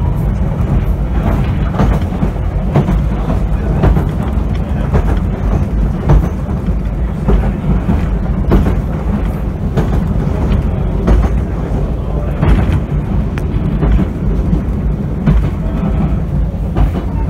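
Interior running noise of an Island Line Class 483 electric train, the former London Underground tube stock, on the move: a steady low rumble broken by irregular short knocks from the running gear.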